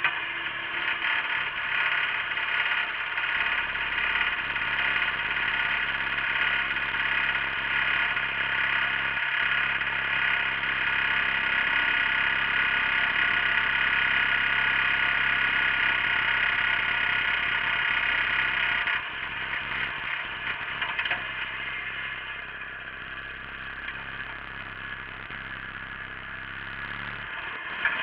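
Wheel Horse garden tractor engine running steadily, heard close up from the plough; it drops in level about two-thirds of the way through, and a short click comes near the end.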